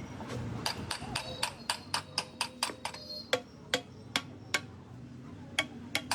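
Metal striking metal: a quick series of sharp taps, each with a brief ring, about three or four a second, then slowing to a few spaced strikes.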